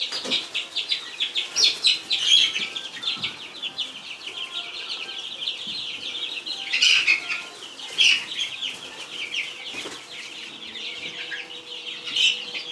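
Many week-old chicks, layers and Meat King broilers, peeping together in a dense, continuous high-pitched chorus, with a few louder peeps standing out here and there.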